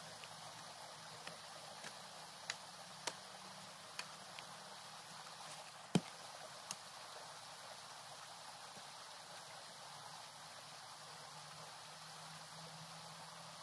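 A steady faint outdoor hiss with scattered short knocks of hand digging tools chopping into soil, eight or so in the first half, the loudest about six seconds in.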